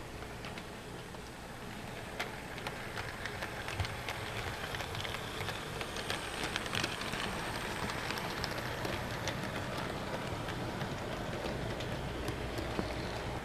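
HO scale model steam locomotive, ET&WNC No. 12, running past with its train on sectional track. It makes a steady rolling whir with many small clicks from the wheels on the rail, a little louder as the train goes by in the middle.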